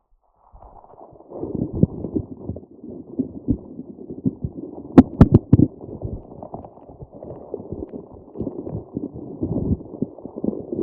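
Squishy grape-cluster stress ball squeezed and kneaded close to the microphone: dense, muffled squishing and crackling that starts about half a second in, with a few sharp clicks about five seconds in.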